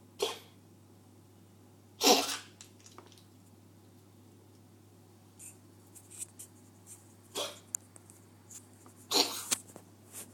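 Domestic cat coughing in four short, sudden bursts, the loudest at about two seconds in and near the end.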